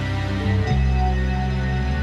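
Background music of sustained chords over low held bass notes, with a chord change under a second in.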